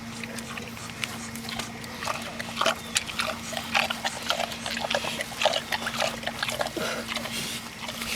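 A pig eating noisily: rapid, irregular wet chomping and smacking as it chews its feed.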